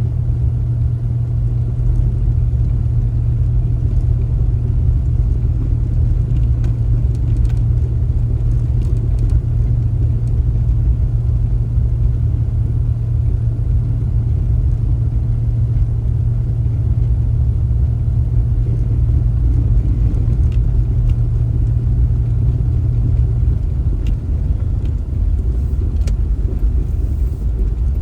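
Steady low rumble of a car driving, with a low hum that drops away near the end.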